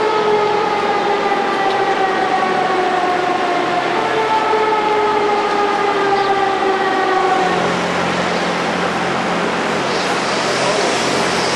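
City traffic noise, with a vehicle's pitched whine slowly falling in pitch for about seven seconds before it fades. A low, steady engine hum grows stronger about two-thirds of the way through.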